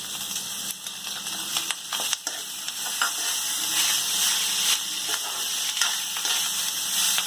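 Leftover cooked rice sizzling in a pan of hot oil with fried onion and peanuts as it is stirred, with a steady hiss and occasional short knocks and scrapes from the stirring.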